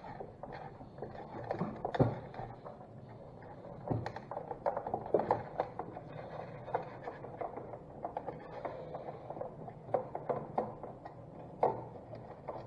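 Scattered clicks, taps and light scrapes of hand work on a Mopar A-body dash assembly as a screw is worked out with a screwdriver, with a couple of louder knocks about two and four seconds in.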